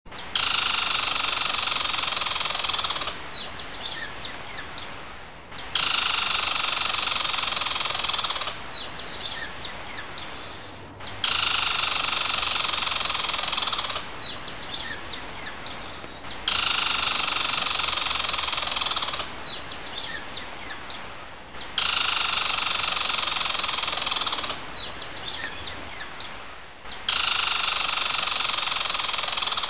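A looped nature sound track: a steady high buzzing drone of about three seconds, then a burst of quick high bird chirps, the pair repeating about every five and a half seconds.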